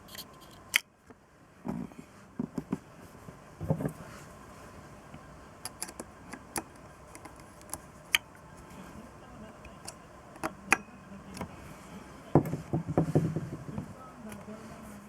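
Small metal parts and hand tools being handled on a bench: scattered clicks, taps and clinks, with a quick cluster of them near the end.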